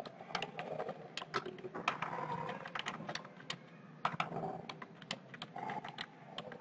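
Computer keyboard typing: quick, irregular key clicks, with a brief lull about halfway through before the typing resumes.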